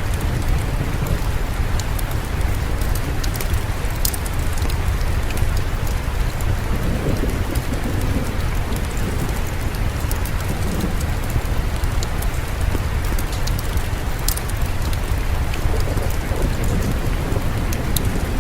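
Steady rain falling, with a constant low rumble underneath and scattered sharp clicks and ticks over it.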